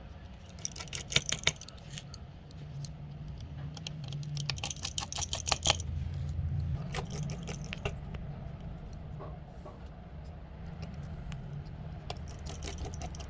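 Clusters of quick, small metallic clicks and ticks from small repair tools and parts handled against a smartphone's frame, over a steady low hum.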